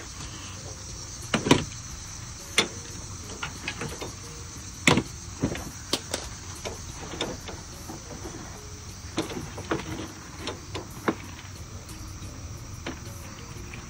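Scattered short knocks and clinks of hand tools and metal parts being worked on a truck, about a dozen in all and the sharpest about one and a half and five seconds in, over a steady high-pitched hiss.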